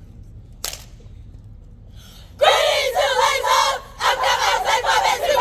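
One sharp smack about a second in, then a group of voices shouting loudly together in two long bursts, the second starting about four seconds in.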